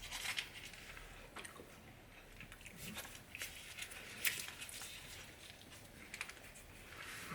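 Faint chewing of soft, gummy mochi, with scattered small wet mouth clicks.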